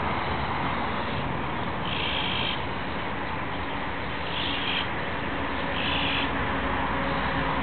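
Three short raspy calls from a fledgling azure-winged magpie, about two, four and a half and six seconds in, over a steady background hiss.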